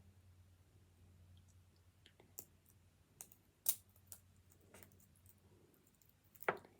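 Light, scattered clicks and taps of small plastic miniature pieces being handled on a table, about half a dozen with irregular gaps, over a faint low hum.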